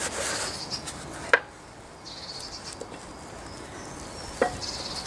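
Two sharp metal clinks about three seconds apart, with handling rustle in between, as the Jaguar E-type's rear half shaft is worked over its shims onto the flange bolts.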